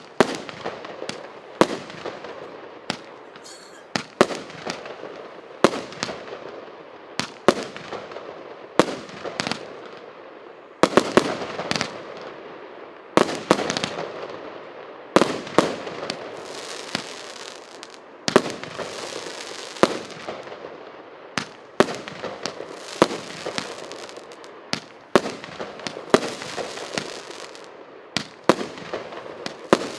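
A 102-shot, 1-inch calibre firework cake firing in sequence: a sharp bang about once a second, sometimes two close together, each trailing off in a fading noisy tail.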